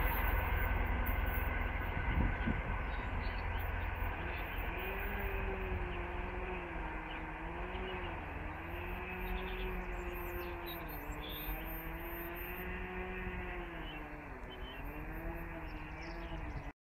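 DR1A diesel multiple unit running away along the track, its diesel drone wavering in pitch and slowly fading, over a steady low rumble.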